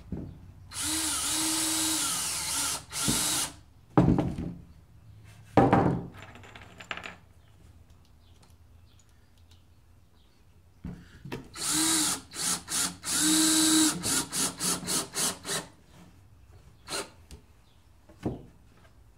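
Power drill running into wood in bursts of a second or two, each speeding up and winding down, then a string of quick short trigger pulses. A couple of sharp knocks come between the early bursts.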